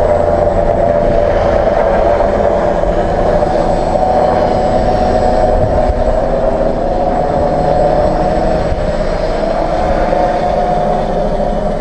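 Tricopter's three NTM 35-36 910Kv brushless motors spinning 10x4.5 propellers in flight: a steady buzzing whine whose pitch wavers slightly as the throttle shifts, with a low rumble underneath.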